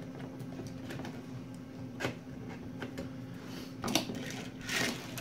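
Hard PLA plastic ramp pieces being handled and set down on a tabletop: a light knock about two seconds in, another near four seconds, then a short sliding scrape, over a steady low hum.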